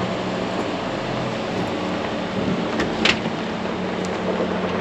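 Ford Raptor pickup crawling slowly over rock at low engine speed: a steady low engine hum under a rumble of tyres on rock and grit, with one brief sharp crunch about three seconds in.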